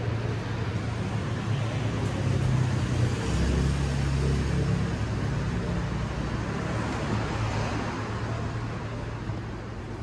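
Street traffic noise: a motor vehicle's low engine rumble swells about two seconds in, holds for a few seconds, then slowly fades.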